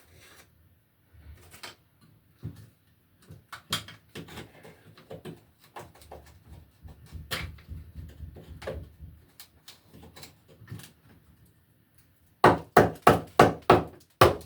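Hand tools working a rusted metal electrical box: irregular clicks and scraping as a screw is worked loose, then near the end a quick run of sharp knocks, about three a second.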